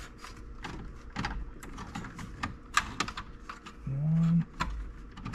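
Irregular small plastic clicks and rattles as wiring connectors are worked loose from the back of a removed Becker CR-220 cassette car radio. A short hummed grunt comes about four seconds in.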